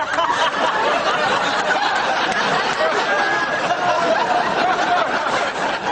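An audience laughing steadily, many voices overlapping at once, with no single voice standing out.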